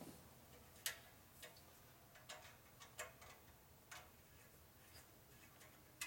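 A handful of faint, irregular metal clicks from a Torx wrench working the head bolts of an air compressor's cast-iron pump, roughly half a second to a second apart.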